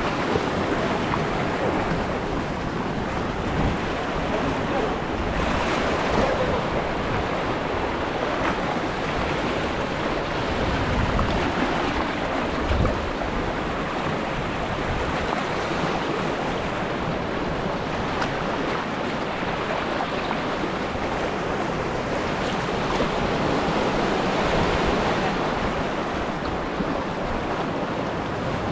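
Sea surf washing steadily around rocks and a wading figure in shallow water, with wind rumbling on the microphone.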